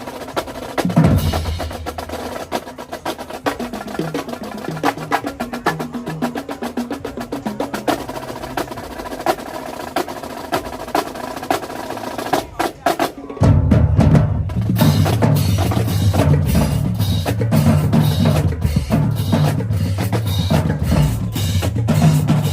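Marching drumline playing a cadence: rapid snare drum strokes with low bass drum hits. About thirteen seconds in there is a short break, after which the bass drums come in heavily and the whole line plays louder.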